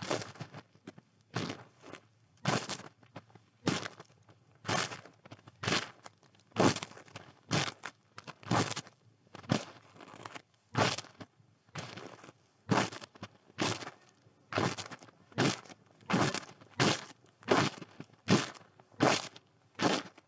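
Footsteps crunching in snow at a steady walking pace, about one step a second, quickening slightly in the second half.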